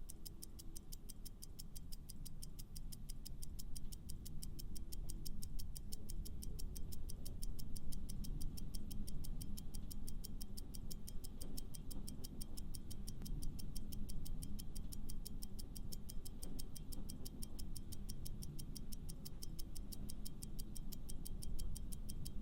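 Clock-like ticking sound effect, fast and steady, over a low background music bed: a countdown timer running while the quiz question waits for an answer.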